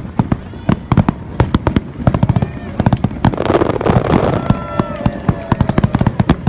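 Aerial fireworks going off in a rapid barrage: many sharp bangs several times a second, with a burst of crackling and a few whistling tones in the middle.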